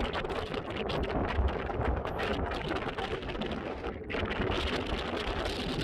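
Wind buffeting the microphone: a rough, rumbling noise that rises and falls in gusts, with a brief lull about four seconds in.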